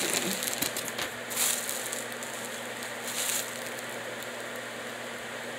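Clear plastic bag crinkling in a few short bursts as a wig is pulled out of it, settling after about three and a half seconds into a steady faint hiss.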